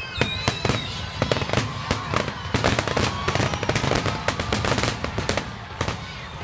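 Grand finale fireworks: a rapid, dense volley of shell bursts and cracks, thickest through the middle, with a few whistling shells gliding in pitch over a steady low rumble.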